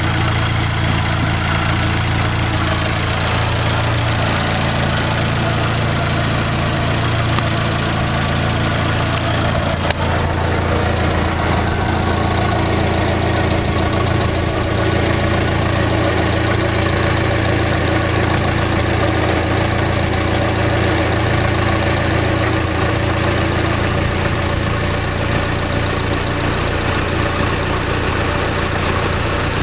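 Fiat Palio's Fire 8-valve four-cylinder engine idling steadily, with one light click about ten seconds in.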